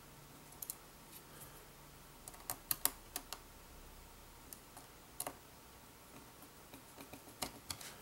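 Faint, scattered small metal clicks and taps of a precision screwdriver driving the retaining screw that holds an SSD in a MacBook Air's logic board: a quick run of sharp clicks a few seconds in, then a few single clicks.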